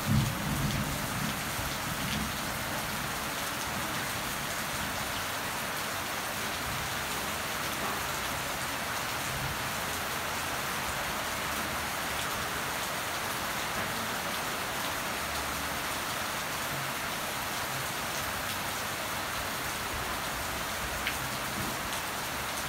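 Steady rain falling on leafy potted plants, an even hiss of drops with no break. A low rumble sounds at the start and dies away within the first couple of seconds.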